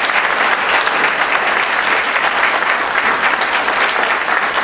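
Audience applauding steadily: many hands clapping in a large hall.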